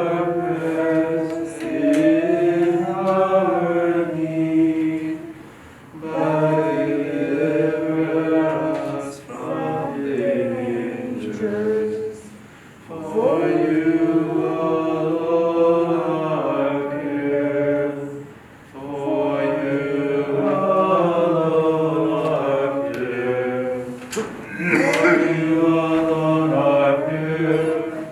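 Unaccompanied Byzantine liturgical chant: voices singing a hymn in long held phrases, with short breaks between them.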